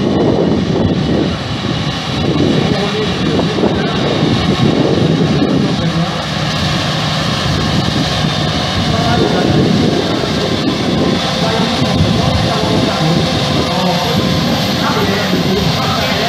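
CLAAS Jaguar 960 Terra Trac self-propelled forage harvester running under load as it cuts and chops maize, a loud steady machine noise from engine, chopper and crop blower. A faint high whine rises slightly in the second half.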